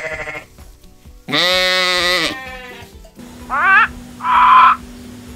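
A sheep bleats once, long and loud, then a male eclectus parrot gives two short squawks, the first rising in pitch and the second harsher.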